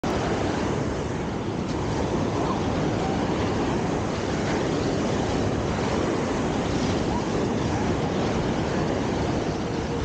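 Surf breaking and washing up the sand at the water's edge: a steady rush of ocean waves.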